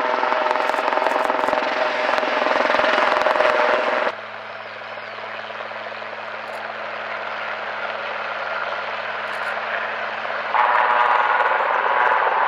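Military helicopter's rotor and turbine engines, loud and close. The sound drops suddenly about four seconds in to a quieter, steadier hum that slowly builds, then jumps louder again near the end.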